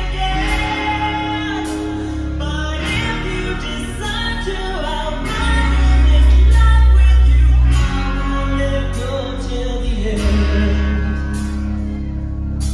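Live rock band playing a power ballad: a woman singing lead over electric guitars, bass and drums, with a steady beat and a louder bass swell in the middle.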